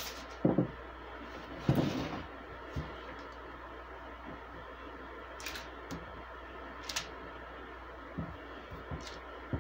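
Scattered soft taps and scrapes of a silicone spatula spreading melted chocolate across a parchment-lined metal baking sheet, over a low steady hum.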